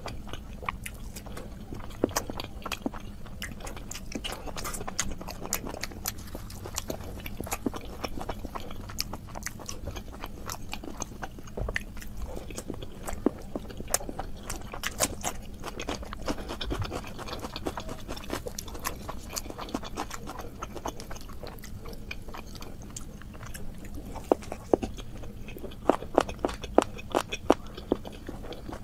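Close-miked eating: wet chewing, lip smacks and mouth clicks as pieces of luchi, puffed fried flatbread, dipped in meat curry are eaten, with occasional crunches. The clicks come thicker and louder near the end.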